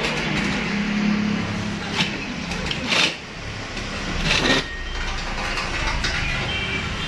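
Precious industrial shoe sewing machine running, its motor humming steadily as it stitches fabric. Two brief, louder noisy sounds come about three and four and a half seconds in.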